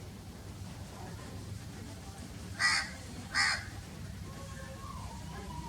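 Crow cawing twice, two short calls about three-quarters of a second apart just past the middle, over a steady low background rumble.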